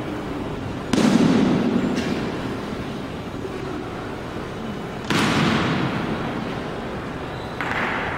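Honor guard's drill strikes on the polished stone floor: two loud sharp cracks about four seconds apart, each ringing out in the hall's long echo, with a softer sound near the end.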